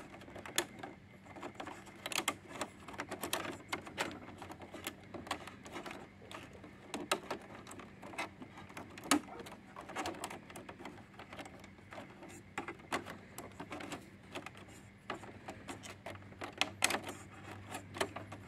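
Irregular light clicks and taps of fingers handling an inkjet printer's plastic chassis, flat ribbon cable and wiring plugs, over a faint steady hum.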